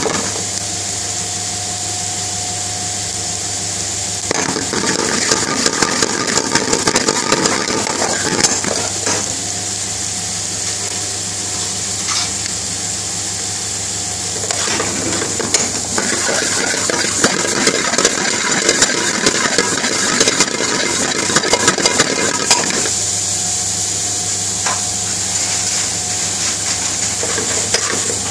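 Onions frying in hot oil in a steel pan, sizzling steadily, while a metal spoon stirs and scrapes against the pan with many sharp clicks. A low steady hum runs underneath in parts.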